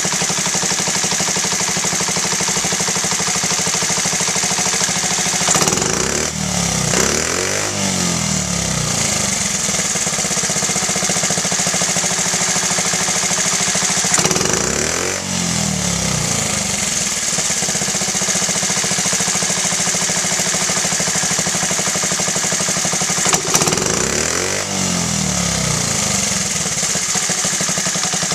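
Honda Z50A mini trail's small four-stroke single-cylinder engine idling steadily, revved three times, each time rising and dropping back to idle. The throttle blips test the carburetor's pilot air screw, set at two turns out, a setting that sounds good.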